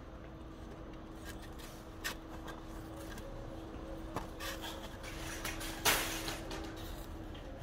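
Small clicks and knocks of handling, then a short scraping rustle about six seconds in as a child's hand digs chips out of a polystyrene takeaway box, over a faint steady hum.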